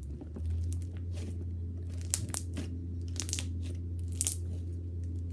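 Crunchy slime with small beads mixed through it being squeezed and pressed by hand, giving clusters of crackles and pops about once a second. A steady low hum runs underneath.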